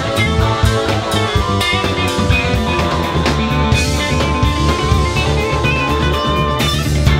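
Live rock band jamming: electric guitars, bass, keyboards and drum kit playing loud together, with a long held high note through the middle.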